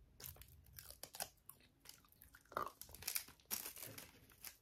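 A crisp roasted seaweed snack being bitten and chewed: a run of quiet, irregular short crunches.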